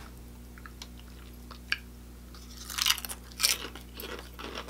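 Close-miked chewing of crunchy food. After a quiet start with a few small mouth clicks, several loud crisp crunches come a little past halfway, followed by softer chewing.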